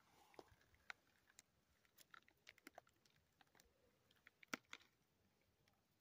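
Near silence with faint, irregular clicks and crackles, the loudest about four and a half seconds in.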